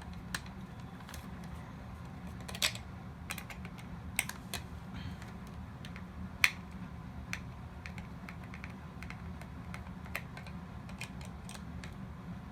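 Irregular light clicks and taps of a plastic toy robot's casing and parts being handled and pulled apart, over a steady low hum. The two loudest clicks come about a quarter of the way in and about halfway.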